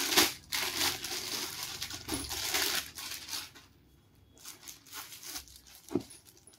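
Rustling and crinkling as a folded dress-material suit piece is handled and laid out, loudest for the first three seconds, then softer handling with a couple of light taps near the end.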